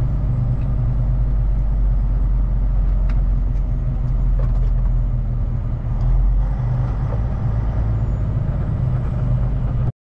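Kenworth T880 semi truck's Cummins diesel engine running with a steady low rumble, a few faint clicks in the middle; the sound cuts off abruptly near the end.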